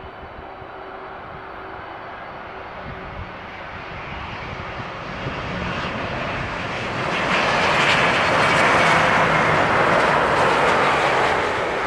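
Airliner's engines growing steadily louder, loudest about eight seconds in and easing slightly near the end, with a faint falling whine as it passes.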